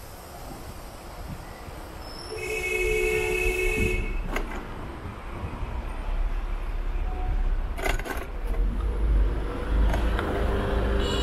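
Street traffic rumble with a vehicle horn sounding once, starting about two seconds in and lasting about a second and a half, and a few sharp knocks later on.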